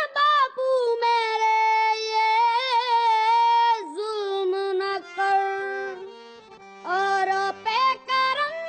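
Music track with a singing voice holding long high notes that waver slightly, then moving through shorter phrases; a low steady accompaniment comes in about seven seconds in.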